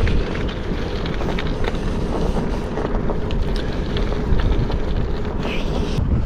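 Wind rushing over the microphone of a camera on a moving bicycle, over the hum of its tyres rolling on asphalt. The sound changes abruptly near the end.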